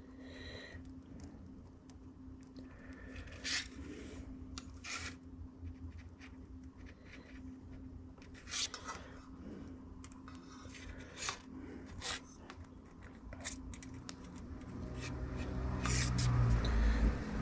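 Scattered light clicks, scrapes and rubbing from a soldering iron and solder being handled while the tip is tinned, over a faint steady hum. A low rumble builds near the end.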